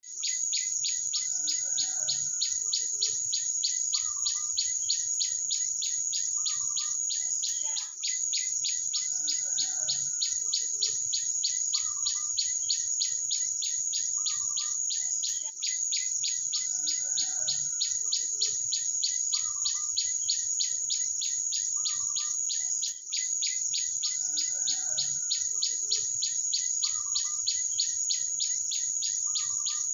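Small birds chirping and calling over a loud, high, rapidly pulsing insect-like trill that pulses about five times a second. The same stretch repeats about every seven and a half seconds, with a brief drop at each join.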